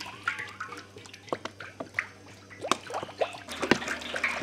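Cooking oil poured from a large plastic jug into a big iron wok, a thin stream trickling and splashing into the oil pooling in the pan, with irregular small drips and ticks.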